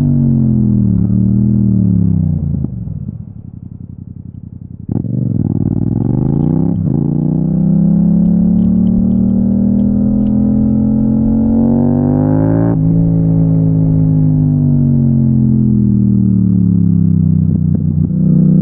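Yamaha MT-07's parallel-twin engine under hard riding. It rolls off with falling revs and goes quieter for about two seconds. Then it pulls hard with rising revs, shifting up about 7 and 13 seconds in, winds down again under engine braking, and picks up once more near the end.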